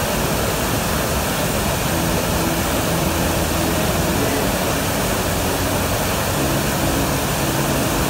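Waterfall in flood: a heavy flow of muddy water pouring over a rock ledge and crashing onto boulders, a steady, even rush of water noise.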